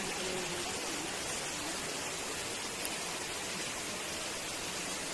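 Waterfall pouring over rocks, a steady even rush of water.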